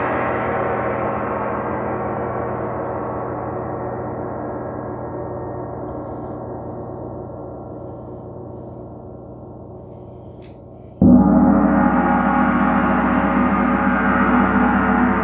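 Large bronze gong ringing and slowly dying away, then struck again about eleven seconds in, swelling back to full loudness with a pulsing low hum.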